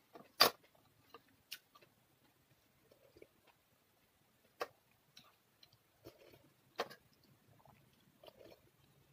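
Close-up eating sounds: quiet chewing and mouth noises, broken by a few sharp clicks of a ceramic spoon and tableware. The loudest click comes about half a second in.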